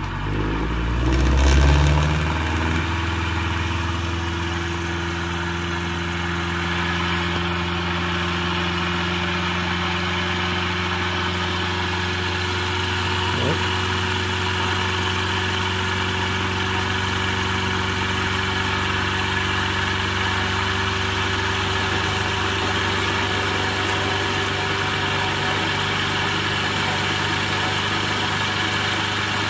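Adams pulsed electric motor generator running with its generator output short-circuited: the spinning rotor and pulsed drive coils make a steady electrical hum. The pitch climbs over the first couple of seconds, then holds, creeping slightly higher as the motor keeps its speed.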